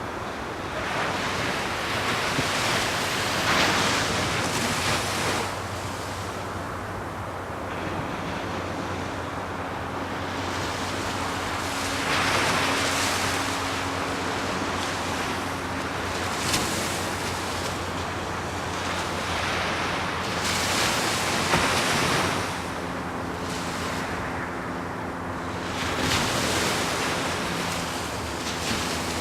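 Ocean surf: waves breaking and washing in, the rush swelling and fading about five times, with a faint steady low hum underneath.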